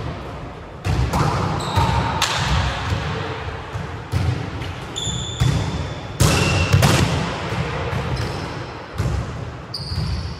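Volleyballs being struck and bouncing on a wooden sports-hall floor: several sharp slaps and thuds at uneven intervals, each echoing in the hall, with short high squeaks in between.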